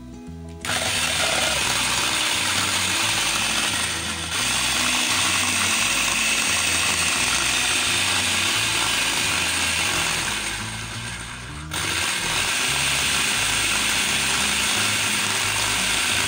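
Electric food processor grinding dry spices into chaat masala powder, its motor and blade running loud and steady. It starts about a second in, dips for a moment a few seconds later, and sags for a second or so before picking up again near two-thirds of the way.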